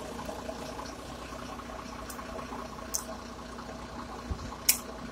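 Steady background hum with faint steady tones, broken by a few brief sharp clicks or hisses, the loudest near the end, with a soft low thump just before it.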